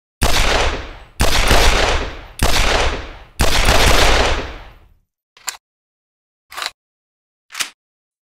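Colt 1911 pistol firing four shots about a second apart, each shot followed by a long fading echo. Three short, much quieter clicks follow, about a second apart.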